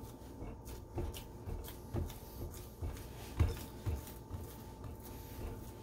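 Hands pressing and patting oiled pizza dough flat on a pizza pan: a few soft, dull thumps about a second apart, the strongest about three and a half seconds in.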